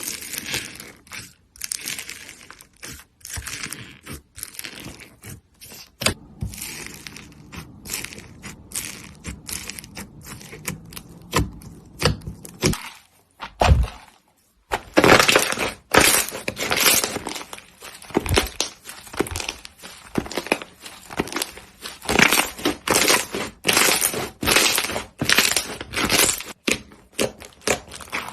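Crunchy slime being squeezed and pressed by hand, a long run of crackles and pops that grows denser and louder about halfway through.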